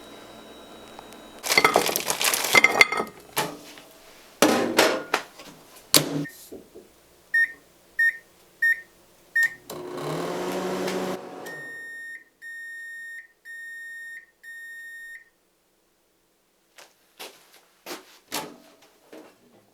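Old microwave oven being handled with clattering clicks and knocks. Then come four short keypad beeps, a hum lasting a little over a second, and four longer, steady beeps. A few more clicks follow near the end.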